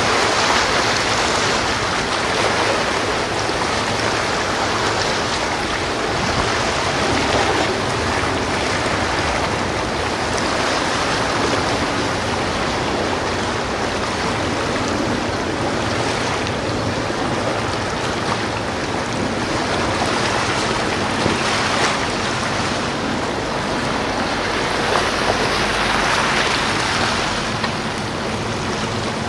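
Steady rush of sea water and wind, swelling and easing every few seconds.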